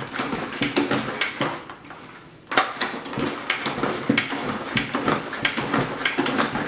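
A plastic salad spinner being worked to spin wet cabbage dry, its mechanism rattling and clicking over and over. About two seconds in it stops briefly, then starts again suddenly.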